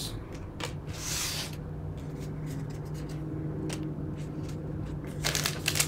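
Trading cards being handled, with light clicks and a short soft swish of a card sliding against others, over a steady low hum. Near the end a foil card-pack wrapper starts to crinkle.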